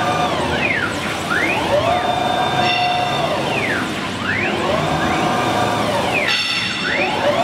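CIMTECH CNC router's axis drive motors whining as the spindle head is jogged back and forth along the gantry: the pitch sweeps up as each move speeds up, holds steady while it travels, and sweeps down as it stops, several times over.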